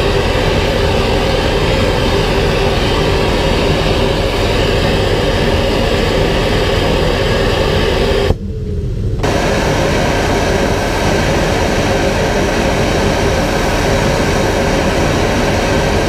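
Built-in RV central vacuum running at a toe-kick dustpan inlet, a loud steady whirring as coffee grounds are swept into it. About eight seconds in it cuts out for under a second, the motor note falling, then it runs again.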